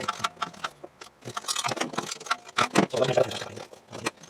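Metal hand tools clicking and clattering against metal in a series of irregular sharp clicks, louder in the second half, as bolts are fitted to fasten the VVT spool valve back onto the engine.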